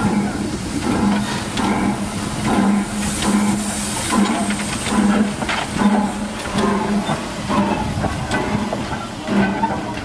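Small 0-4-0T saddle-tank steam locomotive hissing steam as it moves off slowly, with a low rhythmic beat repeating a little under twice a second. The hiss swells about three to four seconds in.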